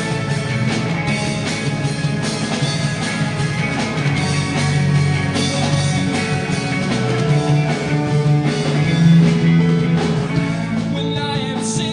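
Live alternative pop-rock band playing an instrumental passage with no lead vocal: drum kit, guitars and bass. Near the end the arrangement changes, leading into the next sung section.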